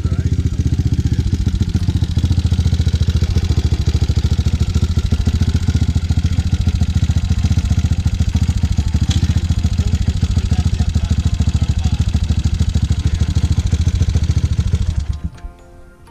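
Honda XR650R dirt bike's single-cylinder four-stroke engine running with a fast, even thump as the bike rolls up and sits idling. The sound cuts off suddenly about a second before the end.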